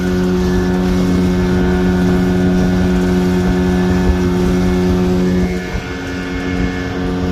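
Outboard motor of a small fibreglass fishing boat running steadily at speed across open sea. The note dips briefly and shifts slightly about five and a half seconds in, then holds steady again.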